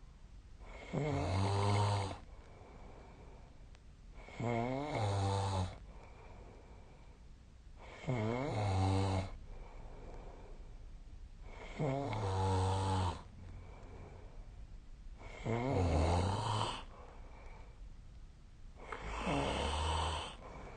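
A sleeping person snoring: six snores about every three and a half seconds, each lasting about a second, with a low pitched buzz.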